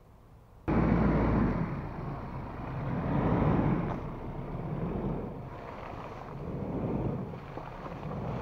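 Ford Ranger Raptor pickup driving past through mud, its engine running under load and its tyres churning and splashing through wet ground. The sound cuts in suddenly under a second in and rises and falls in several swells.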